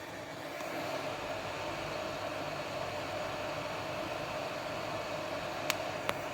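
Hot air rework station blowing a steady hiss of hot air onto a laptop board to heat the audio codec chip, with two short clicks near the end.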